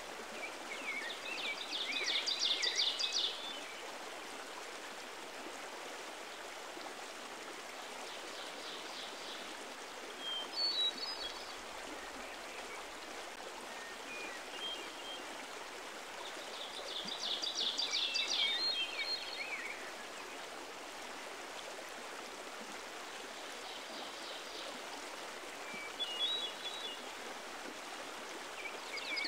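Steady rush of running water, with a songbird singing a long, rapid phrase near the start, again about halfway through, and once more at the end, and a few short chirps in between.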